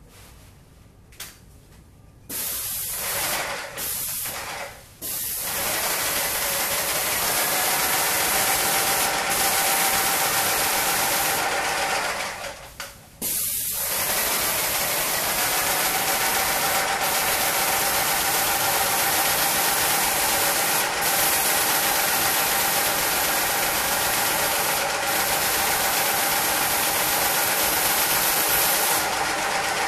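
Paint sprayer with a pole extension gun spraying paint: a loud steady hiss. It starts with a few short bursts, stops briefly about halfway through, then runs on until near the end.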